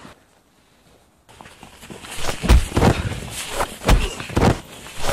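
A scuffle in snow after about a second of quiet: scuffing feet and several heavy thuds of blows and bodies colliding.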